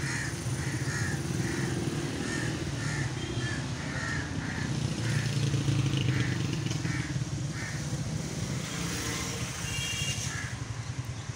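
Street traffic dominated by motorcycle engines running, a steady low hum. A short higher-pitched sound repeats about twice a second over it.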